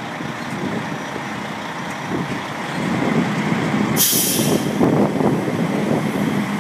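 Ford Super Duty tow truck's engine running under load as it pulls a car out on its wheel lift, getting louder from about three seconds in. A short, sharp hiss of air about four seconds in.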